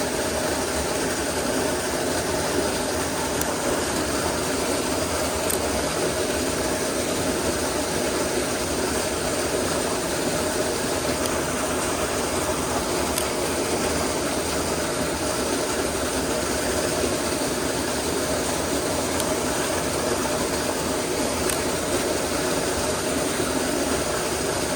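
Mountain stream water rushing steadily over a small drop, an even, unbroken noise.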